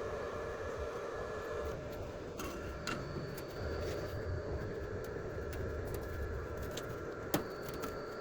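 A steady machine hum with a few held tones, a few scattered light clicks, and one sharp click near the end.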